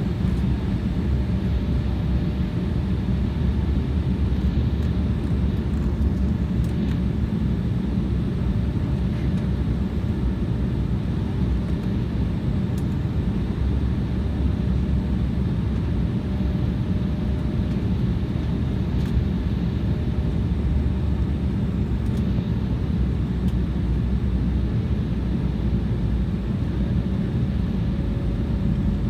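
Airliner cabin noise in flight: a steady low rumble of engines and airflow, with a faint steady tone above it.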